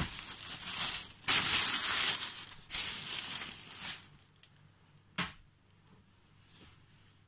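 Thin plastic shopping bag rustling and crinkling as it is handled and pulled open, in several rough spurts that stop about four seconds in. A single short knock follows about a second later.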